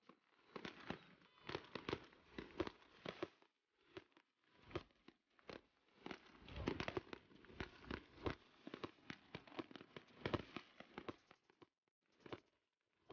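Aerial fireworks bursting with dense runs of crackling pops. The crackling stops briefly twice, about three and a half seconds in and near the end.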